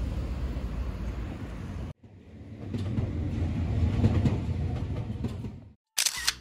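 A train running, a low rumble with light clacking that swells and then fades away. It is preceded by a steady rumbling noise that cuts off abruptly about two seconds in, and a sharp click comes near the end.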